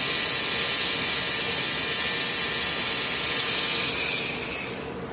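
3Doodler 3D pen's drive motor and gears whirring steadily as it feeds plastic filament out of the hot nozzle, fading out about four and a half seconds in when extrusion stops.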